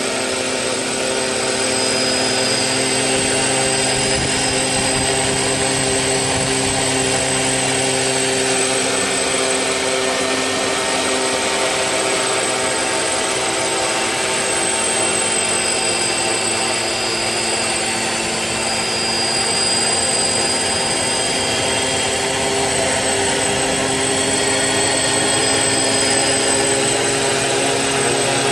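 DJI Phantom quadcopter's motors and propellers buzzing steadily, a whine made of several fixed pitches with a thin high tone above.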